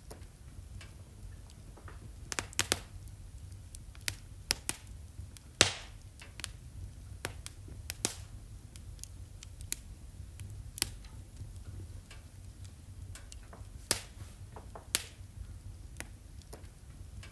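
Wood fire in a fireplace crackling, with irregular sharp pops, the loudest about five and a half seconds in, over a low steady rumble.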